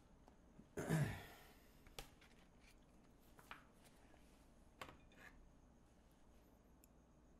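Small handling sounds: a short rustling thump about a second in, then a few light clicks and taps as a magazine is put down and a ceramic mug is picked up.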